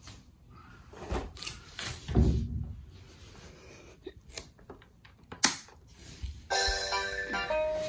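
Plastic clicks and knocks of hands pressing the keys and buttons of an Anpanman toy keyboard, with a heavy thump about two seconds in and a sharp click about five and a half seconds in. About six and a half seconds in, the toy starts playing a burst of electronic tones.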